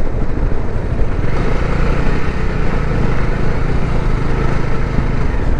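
Bajaj Dominar 400's single-cylinder engine running steadily while riding at road speed, over a loud rush of wind and road noise.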